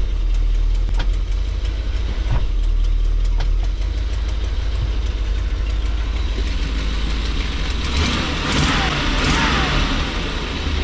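Motorhome V8 engine idling, heard inside the cab with the engine cover open and the exhaust leak audible. Four sharp clicks in the first few seconds as the column shift lever is moved through the gears, and a rushing hiss lasting about a second and a half near the end.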